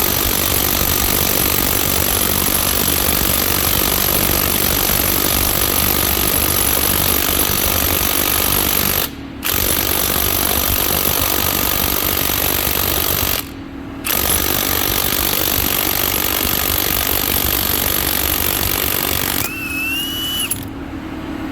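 Ryobi One+ 18V HP brushless high-torque impact wrench hammering on a truck wheel nut torqued to about 500 ft-lb, with two brief pauses in the trigger; it struggles but breaks the nut loose. The hammering stops about two seconds before the end.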